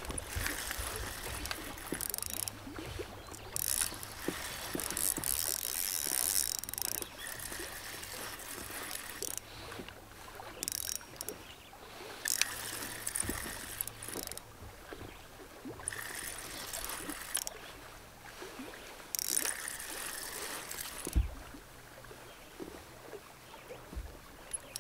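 Fishing reel being cranked in repeated bursts of a second or two, with short pauses between, while retrieving a lure; a single sharp knock near the end.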